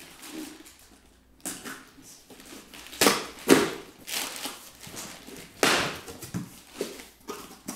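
A small cardboard box being pulled open by hand: a series of short scraping and tearing sounds of cardboard flaps and packing, the loudest about three seconds in and again near six seconds.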